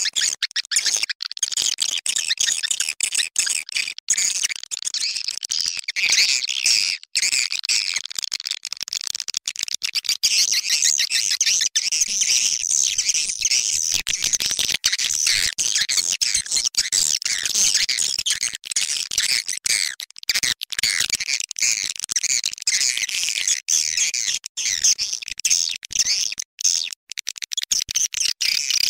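Swiftlet lure-call recording: a dense, unbroken stream of rapid, high twittering chirps from many swiftlets, the kind of call played from a swiftlet house to draw in passing birds.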